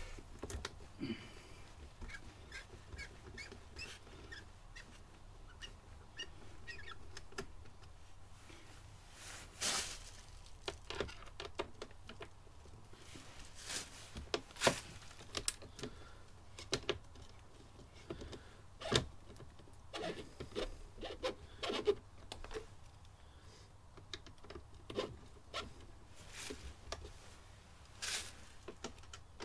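Irregular light clicks, taps and knocks of hand work as a T25 Torx T-handle driver undoes the screws holding a motorcycle's lower plastic fairing, with a few sharper knocks among them.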